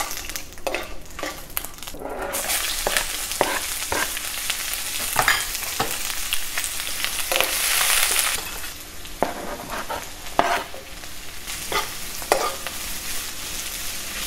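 Chopped onion and green chillies sizzling in hot oil in a nonstick pan, with a metal spoon scraping and clicking against the pan as they are stirred. The sizzle swells about two seconds in, is loudest around the middle, then eases.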